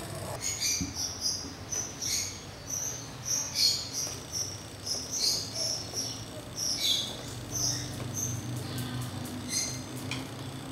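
Irregular high-pitched chirps, a few a second, some falling in pitch, over a low hum that grows stronger about seven seconds in.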